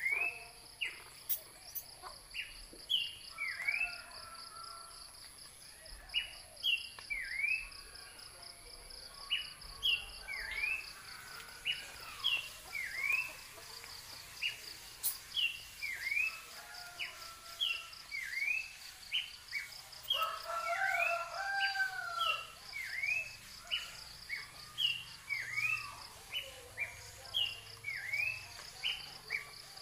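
Outdoor ambience of birds and insects: a bird repeats a short, sharp chirp about once a second over a steady insect trill and high whine. The fast pulsing part of the insect trill fades about ten seconds in, and a few lower warbling calls come in around two-thirds of the way through.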